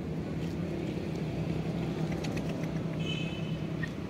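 Steady low hum of a running engine, with scattered light clicks and a brief high chirp about three seconds in.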